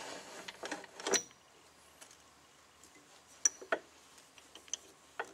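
A few sharp metal clicks and light knocks with quiet stretches between, as bushings and pen blanks are fitted on a lathe's pen mandrel and the tailstock is slid up against them.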